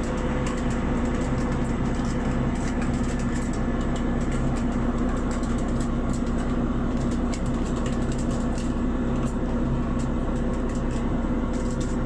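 A boat's engine running steadily with a constant hum, with frequent light clicks and rattles over it.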